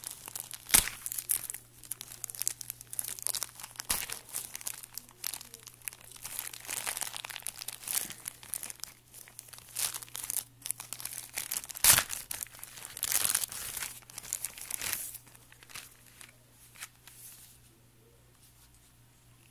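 Plastic postal mailer crinkling and being torn open by hand: irregular crackles and rips, with two sharp loud tears, about a second in and about twelve seconds in. The rustling stops a couple of seconds before the end.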